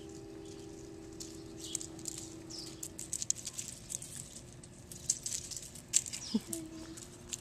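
Puppies' claws and paws pattering and ticking on a concrete and gravel patio in quick, irregular clicks, busiest in the second half, with a few short high chirps. A steady low hum runs through the first three seconds.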